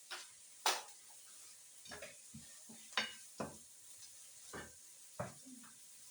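Kitchen utensils knocking and clinking against cookware during cooking, about eight separate knocks at uneven intervals, the loudest one near the start.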